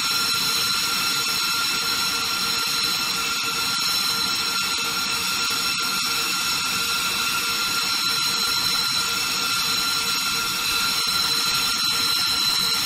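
Jet engine running steadily: a loud, even rush of noise with a high whine of several steady tones over it.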